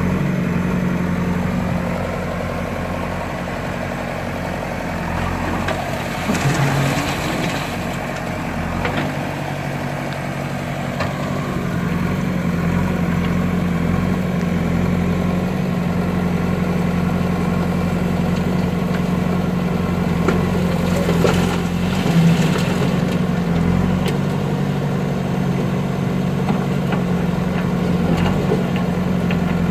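Backhoe loader's diesel engine running steadily. Its note drops for several seconds about two seconds in, then rises back. Bursts of rattling clatter come around six and twenty-one seconds in.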